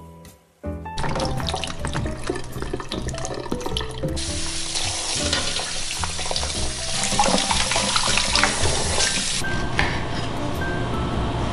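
Tap water running and splashing into a stainless steel sink as figs are rinsed by hand, under jazz piano background music. The music comes in about a second in after a brief quiet.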